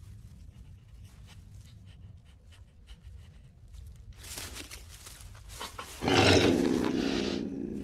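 Faint scratching and rustling, then about six seconds in a sudden loud animal growl that carries on to the end.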